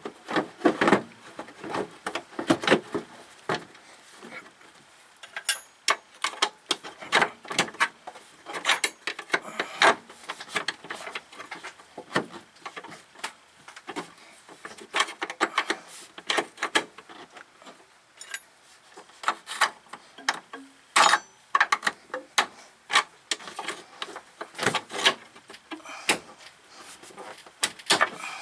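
Irregular clicks, knocks and rubbing from hand work on a rubber radiator hose and its spring clamp with metal pliers, with no steady rhythm.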